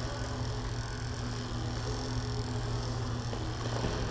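Steady low hum and background noise of an indoor badminton hall, with no shuttlecock strikes.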